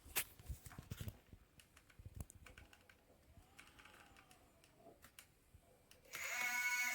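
A few light clicks and knocks, then about six seconds in a robot vacuum's motor starts up with a steady pitched whine.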